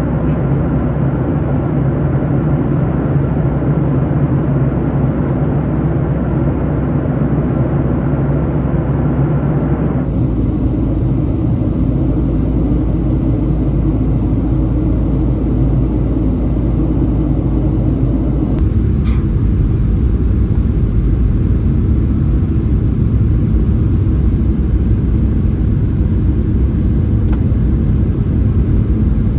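Steady, loud rumble of a Boeing 737-700's CFM56 jet engines and airflow, heard inside the passenger cabin. The tone changes abruptly about ten seconds in and again near nineteen seconds.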